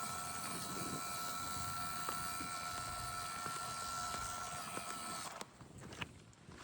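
Axial SCX24 Deadbolt RC crawler's small Injora 050 66T brushed motor and drivetrain whining steadily under throttle, then cutting off about five seconds in.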